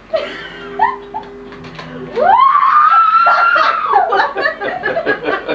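A person's long high-pitched squeal, rising and held for about two seconds, that breaks into quick laughter near the end.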